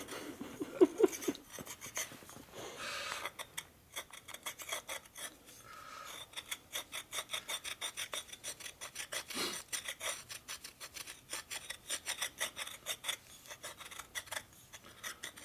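A fingernail file rasping in quick back-and-forth strokes on the ring groove of a big-bore Harley piston, easing a groove that detonation has pinched so the ring sits too tight.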